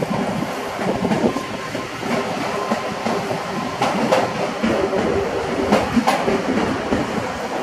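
Regional electric multiple unit running past on the station tracks: a continuous rumble with a steady tone running through it, and a few sharp clacks as the wheels cross rail joints, about four seconds in and again near six seconds.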